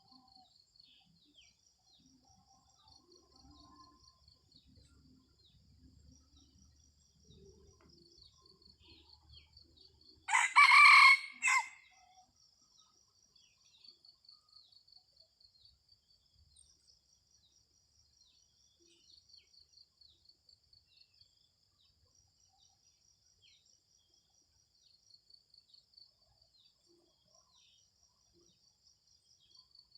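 A red junglefowl cock crows once, a short clipped crow lasting about a second and a half, about ten seconds in. Insects chirp in a faint, steady, pulsing way throughout.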